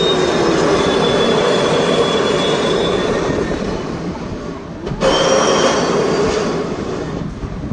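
Loud rushing air with a steady whine over it from an S&S Space Shot tower ride's compressed-air launch system, as the rider seats are shot up the tower. The sound cuts off abruptly near five seconds, then comes back with a higher whine.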